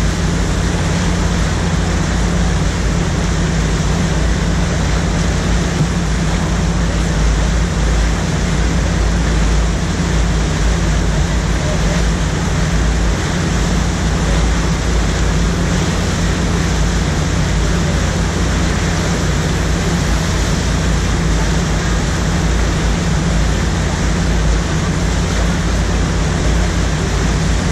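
Rushing white water of an artificial standing surf wave, a loud steady roar close to the microphone with a steady low hum underneath.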